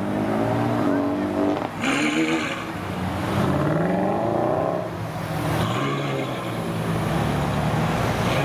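Ferrari F12 N-Largo's V12 engine running at low revs as the car pulls away slowly, with the revs rising briefly about two seconds in and again around four seconds in before settling back to a steady low note.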